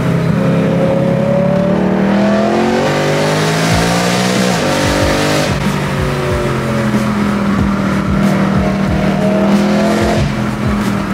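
BMW E90 M3's 4.0-litre V8, running with its primary catalytic converters removed and no rear muffler, heard from inside the cabin. The revs climb under acceleration for about four seconds, then drop sharply with a string of low pops from the exhaust, and the engine runs on at a steady note.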